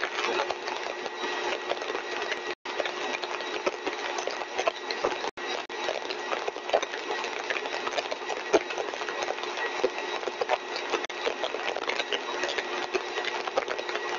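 Single-stage axial compressor rig running steadily at full design speed: a constant rushing noise with a steady whine, flecked with small crackles. The sound cuts out for an instant twice, about two and a half and five seconds in.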